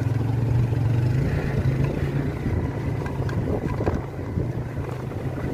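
Motorcycle engine running steadily under load while riding up a rough, unfinished mountain road, with wind on the microphone.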